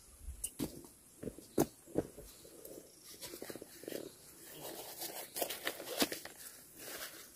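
Thin plastic nursery bags of potted seedlings crinkling and rustling as they are handled, with irregular sharp crackles. The loudest crackles come about a second and a half in and near the end.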